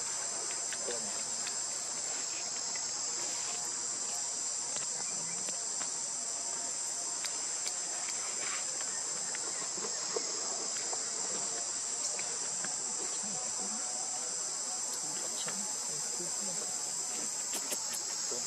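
Steady high-pitched drone of an insect chorus, such as cicadas or crickets, holding even throughout.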